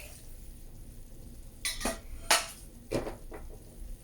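Kitchenware knocking and clinking: four or five sharp, separate knocks over about a second and a half, the loudest a little past two seconds in, as a blender jar and its lid are handled.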